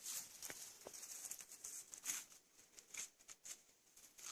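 Faint, irregular rustling and crackling of forest leaf litter and twigs being disturbed.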